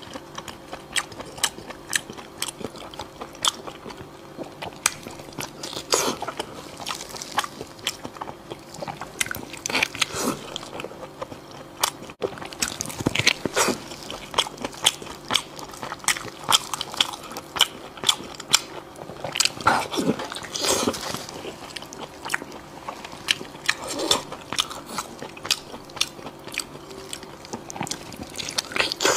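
Close-up eating sounds: a person biting into and chewing a large, sauce-glazed chunk of braised meat, with many sharp clicks and smacks and a few louder, wetter bites along the way.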